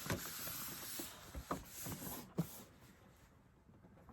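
Handling noises from a boxed collectible being turned over in the hands: a scatter of light clicks and taps with faint rustling, thinning out in the last second or so.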